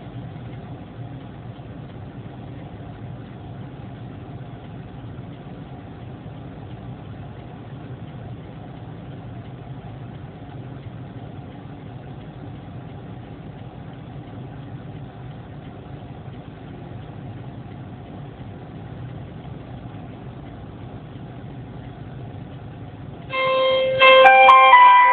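Steady low engine and road hum of a vehicle as picked up by a dashcam. Near the end, a much louder electronic chime of several stepped tones starts.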